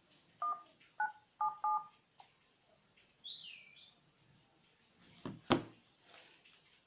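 Smartphone dialer keypad sounding four short two-tone DTMF beeps in under two seconds as the number 1-9-7-7 is keyed in. About five and a half seconds in comes a single sharp click, the loudest sound.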